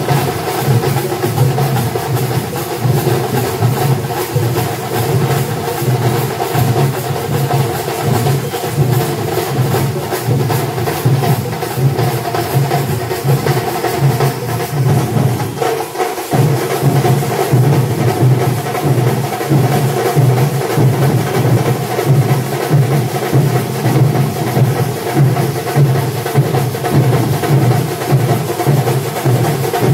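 Kerala chenda drum ensemble playing a fast, dense rhythm of stick strokes over a steady droning tone. The sound dips briefly about halfway, then carries on.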